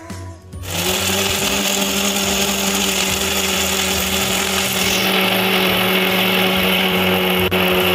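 Electric mixer grinder starts under a second in and runs steadily with a whirring hum, grinding tomato, onion, green chilli and garlic into a thick chutney with no water added.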